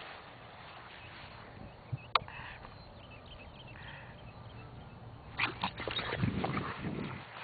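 A French bulldog making short, low noises mixed with clicks in the last two seconds. Earlier there is a single sharp click about two seconds in.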